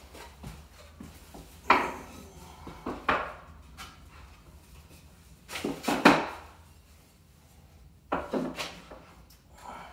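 Wooden blocks and boards knocking and clunking as they are set down and shifted against the radiator's wooden cribbing: four or so separate sharp knocks, the loudest about six seconds in.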